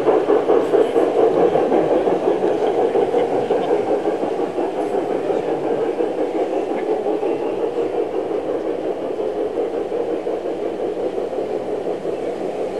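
G-scale garden railway train of coaches rolling along the track, its wheels making a steady rumble with rapid clicking that slowly fades as the train moves away.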